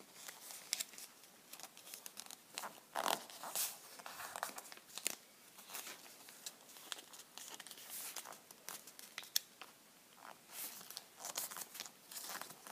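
Square of origami paper being folded and creased by hand into a kite fold: faint, irregular rustling and crinkling with many short crackles.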